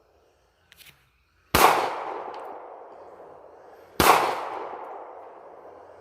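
Two handgun shots about two and a half seconds apart, each with a long echo trailing away.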